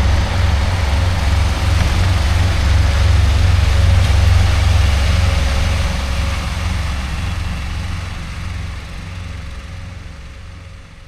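Heavy truck engine running with a deep, steady low rumble, fading away over the last several seconds.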